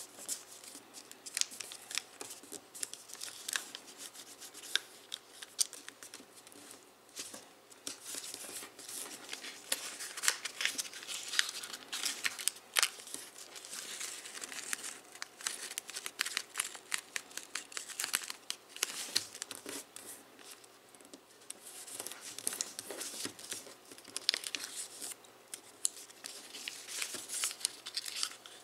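Foil origami paper crinkling and crackling as it is folded and creased by hand, in dense irregular sharp crackles.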